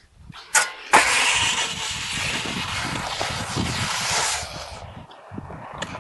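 Snow shovel scraping along snow on river ice in one long push of about three and a half seconds, preceded by a couple of sharp knocks about half a second and a second in.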